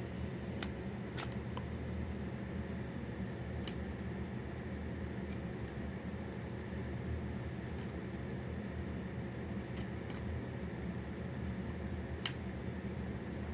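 Trading cards being handled and flipped through, giving a few light clicks and snaps, the sharpest one about twelve seconds in, over a steady low room hum.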